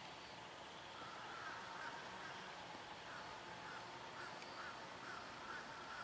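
A bird calling faintly and repeatedly, short notes about three a second, starting about a second in, over a steady background hiss.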